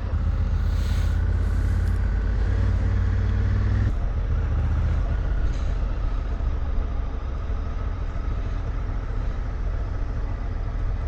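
Parallel-twin adventure motorcycle engine running under way, with a steady low rumble and wind hiss; the rumble drops a little about four seconds in.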